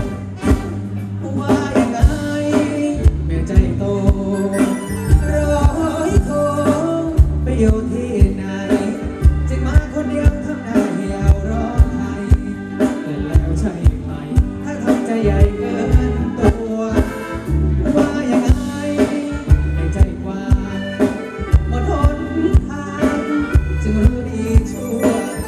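Live Thai ramwong band music: a singer over electric guitars and a steady drum beat, played loud through the stage PA.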